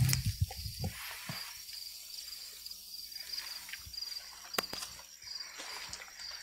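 Crickets chirping in a steady pulsing high trill, with a few sharp clicks and soft knocks from a microphone and pages being handled.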